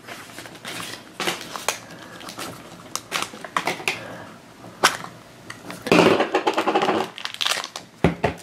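A small round plastic toy capsule (a blue cheese-wheel container) being twisted and pulled open by hand, with many quick, sharp plastic clicks and taps. About six seconds in there is a louder stretch of handling noise, and near the end a foil blind bag crinkles.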